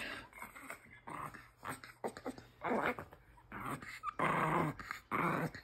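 A pet dog vocalizing excitedly in a string of short, breathy sounds, about half a dozen in a few seconds.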